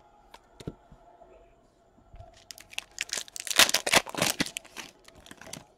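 Foil trading-card pack wrapper being torn open and crinkled by hand: a burst of dense crackling starting about two seconds in, loudest in the middle and dying away just before the end, after a couple of faint taps.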